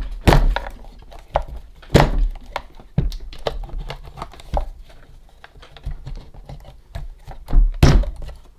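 Irregular knocks and clicks of a stiff carrying handle being worked off its hooks on a Roberts RFM3 radio's case, the loudest about two seconds in and again near the end.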